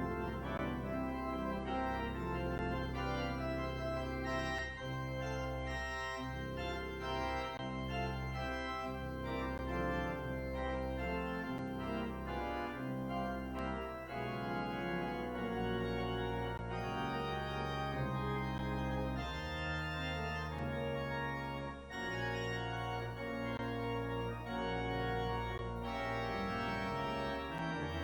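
Organ playing the closing postlude: sustained chords with a deep bass line, changing every second or two.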